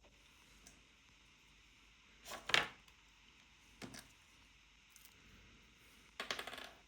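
Faint handling noises of small objects on a work surface: a short scrape about two and a half seconds in, a single click near four seconds, and a quick rattling scrape near the end.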